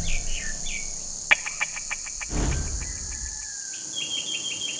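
Birds chirping and insects trilling over a steady high insect hiss. About halfway there is a quick run of clicks and a whoosh, and near the end a fast, regular cricket-like chirping sets in.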